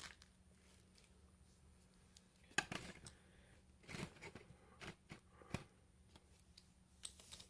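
A few faint, scattered clicks and knocks, the sharpest about two and a half seconds in, over a faint steady low hum.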